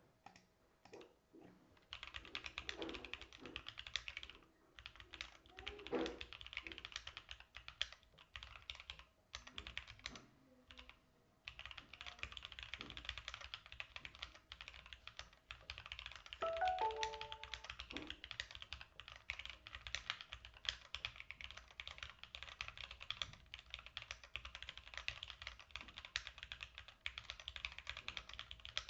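Keychron Q8 Alice-layout mechanical keyboard being typed on fast and continuously, a steady stream of key clacks with a short pause partway through. A brief pitched sound near the middle is the loudest moment.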